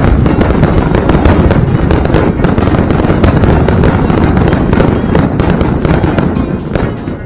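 Aerial fireworks display: dense, continuous crackling and banging of many shells bursting at once, easing off near the end.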